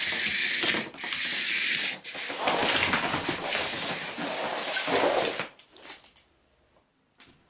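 Loud hissing, scraping noise that broadens into a fuller rustle about two seconds in and stops abruptly about five and a half seconds in, followed by a single faint click near the end.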